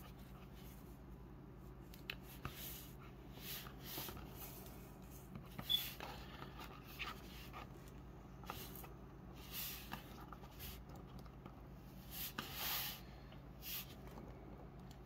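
Faint handling of a plastic action figure: scattered soft clicks and brief rubbing and rustling as fingers adjust and pose it, over a steady low hum.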